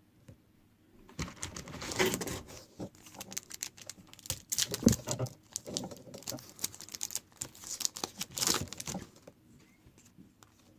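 A trading-card pack wrapper crinkling and tearing as the pack is opened, with the cards inside handled. The noise starts about a second in and stops shortly before the end.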